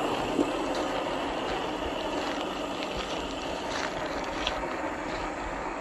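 A 1/10-scale RC crawler on an MST CFX chassis driving across dirt and gravel. A steady rushing noise with a few small clicks of stones.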